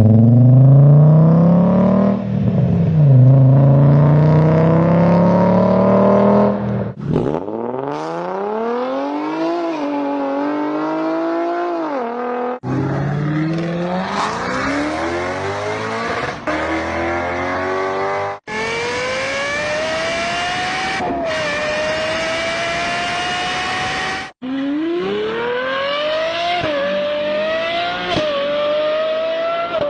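A string of different V-engine cars, about five short recordings cut back to back. Each engine revs and accelerates hard, its pitch climbing and then dropping sharply at each upshift. The first engine is deep and low-revving, and the later ones run at higher pitch like race engines.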